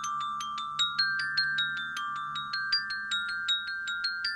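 Glockenspiel's metal bars struck with a mallet: a quick, even run of high ringing notes, about four or five strikes a second, over lower notes that keep sounding underneath.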